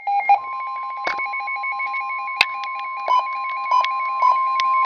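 Emergency Alert System alert tone: one steady high tone held for about four and a half seconds, then cut off, with a few sharp clicks and a fainter pulsing tone pattern beneath it.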